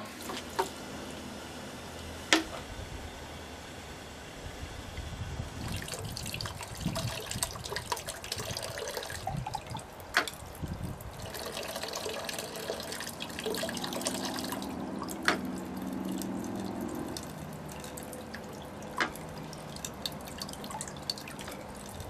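Water from a small fountain pump pouring out of a bamboo spout into a shishi-odoshi's pivoting bamboo arm and splashing into its basin: a steady trickle and splash. Four sharp knocks stand out, spaced several seconds apart.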